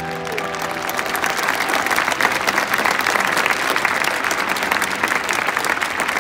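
Large stadium crowd applauding, the clapping building over the first couple of seconds and then holding steady, as music fades out at the start.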